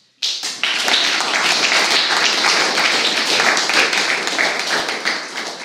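Audience applauding, starting suddenly and fading near the end.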